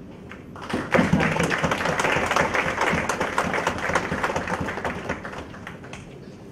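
Audience applauding, starting about a second in and fading away near the end.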